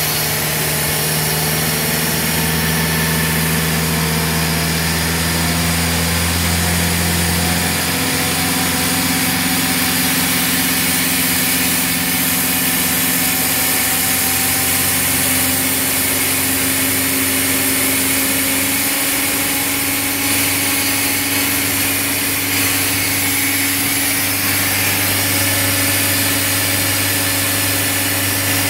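Engine and compressor of a self-generating nitrogen servicing cart running steadily, with hiss over the engine note. The engine note shifts about eight seconds in as the engine is brought up toward 2,000 RPM.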